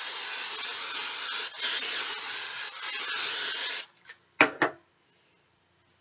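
Aerosol hairspray can spraying in one long hiss of nearly four seconds, dipping briefly twice, followed by two sharp knocks close together.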